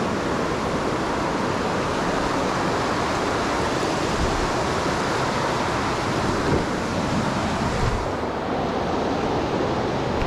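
Steady rush of fast river water running over rocks, with some low wind buffeting on the microphone.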